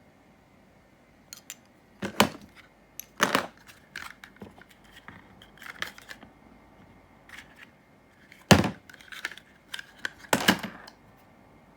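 Airsoft M4 magazine being pushed into and drawn out of a kydex magazine pouch: a series of sharp hard-plastic clicks and knocks with short scrapes between them. The loudest knocks come about 2, 3, 8.5 and 10.5 seconds in.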